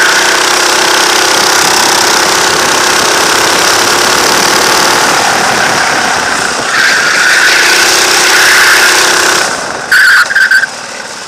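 Go-kart engine running hard on the track. A high-pitched squeal rises over it from about seven seconds in. Near the end the engine sound drops away, broken by a few short, loud bursts.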